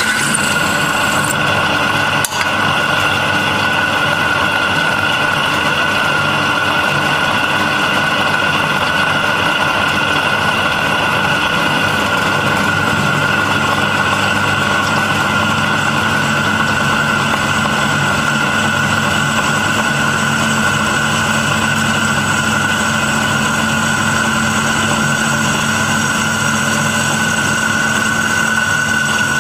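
Freshly repaired column drill press running steadily and drilling a hole in a steel strip, its motor and gears giving a steady high whine over a lower hum. A short knock about two seconds in.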